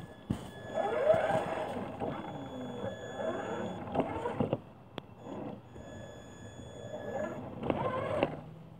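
Traxxas Summit 1/10-scale RC rock crawler's electric motor and gearbox whining, the pitch sliding up and down with the throttle as it climbs over a snowy rock, with a few sharp knocks from the drivetrain and tyres. It runs for about four seconds, eases off, then whines again briefly near the end.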